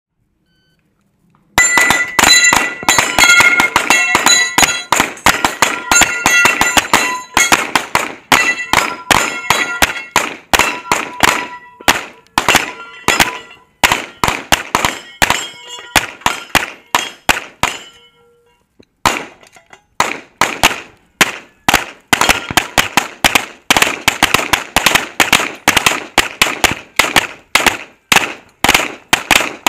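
Rapid handgun fire from several shooters at once, the shots overlapping, with steel targets ringing as they are hit. The firing starts about a second and a half in, breaks off for about a second some two-thirds of the way through, then picks up again.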